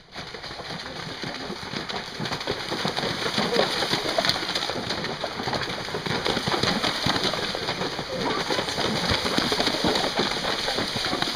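Several gypsy cobs cantering through shallow stream water, their hooves churning up continuous heavy splashing. It grows louder over the first few seconds as they come close and stays loud.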